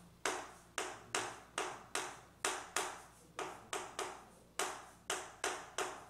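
Chalk striking and scratching on a chalkboard as characters are written: a short sharp tap at each stroke, about two or three a second at an uneven pace, each fading quickly.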